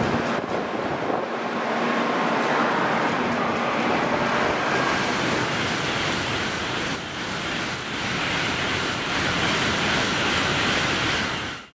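N700-series Tokaido Shinkansen passing through the station at high speed: a loud, continuous rush of wheel, rail and air noise, with a sharper hiss in the middle as the cars go by close. It cuts off abruptly at the very end.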